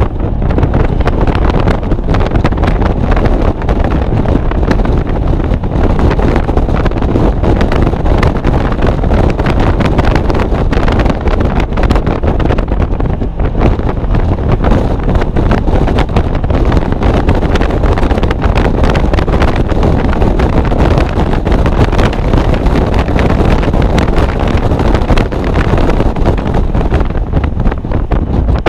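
Wind buffeting the microphone in an open-top 2016 Mazda MX-5 Miata at track speed, with its 2.0-litre four-cylinder engine running hard in third gear underneath.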